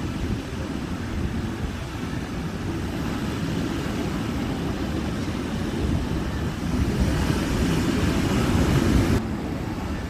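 Ocean surf washing onto the beach under wind buffeting the microphone, a steady low rumbling rush. It swells from about seven seconds in and cuts off suddenly about a second before the end.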